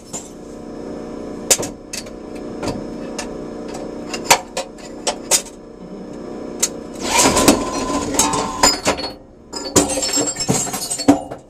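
Envipco CF1500G glass reverse vending machine running with a steady motor hum, broken by sharp knocks and clattering glass as bottles are taken in, with two longer bursts of clatter in the second half.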